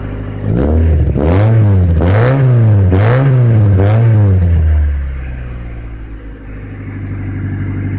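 A car engine revved four times in quick succession, the pitch rising and falling with each blip, then dropping back to a steady idle.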